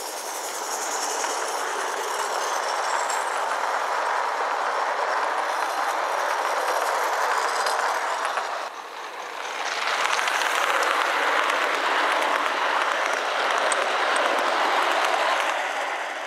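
Gauge 1 live-steam model train running past on garden-railway track: a steady rush of wheels on the rails with some clickety-clack. It dips briefly just past halfway, then swells again and fades near the end.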